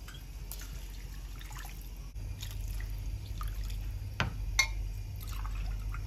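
Water being poured from a glass into a pot of rice for pilaf, with dripping and splashing. There are two sharp knocks about four seconds in, over a steady low hum.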